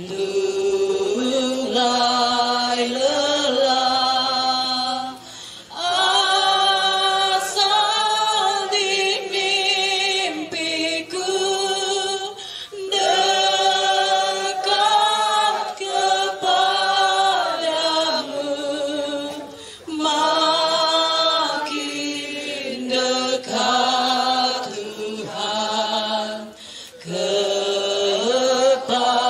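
A group of men's and women's voices singing a hymn together, in long phrases with short breaks for breath between them.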